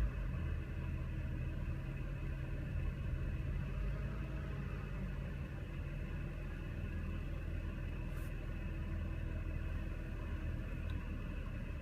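BMW engine idling steadily in park after the revs settle. The engine has a misfire on cylinder four and a carbon-fouled electronic throttle actuator, which the owner blames for unstable idle and stalling.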